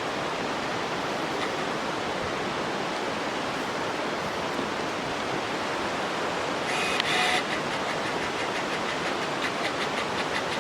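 Steady rushing of a mountain river or stream. About two-thirds through there is a short high-pitched call, and near the end a fast run of faint high chirps.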